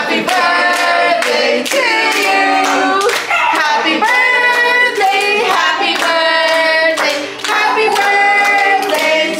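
A group of people singing together while clapping along in a steady rhythm.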